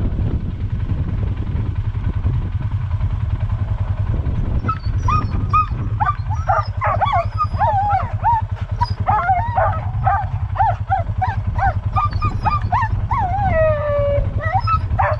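A harnessed sled-dog team whining and yipping in many short cries that rise and fall in pitch. The cries start about five seconds in and build, with one longer falling whine near the end: the sound of a stopped team eager to run. A steady low rumble runs underneath.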